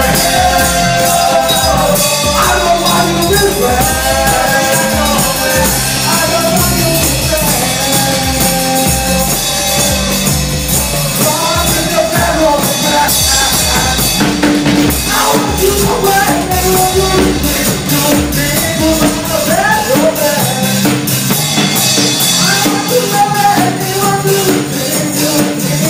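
A band playing music with a singing voice and a drum kit.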